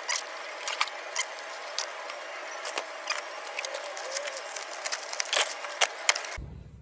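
Plastic packaging crinkling and rustling in irregular crackles as a new toner cartridge is pulled from its yellow protective wrap and clear inflatable air-column bag.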